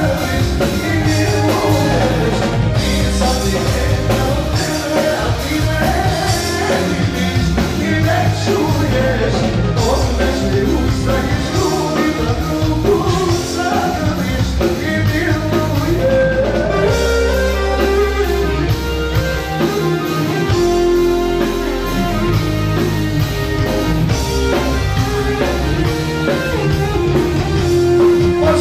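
Live band music played through a PA system, with a man singing into a handheld microphone over a steady bass and drum beat.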